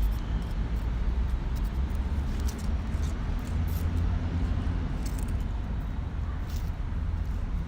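Steady low rumble of background road traffic, with scattered faint light clicks and rustles.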